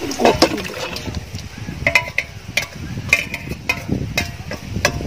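Metal utensils, a wire skimmer and a spatula, clinking and knocking against aluminium cooking pots as chicken masala is scooped into a large pot. The clinks come irregularly, many in a few seconds, and some leave a brief metallic ring.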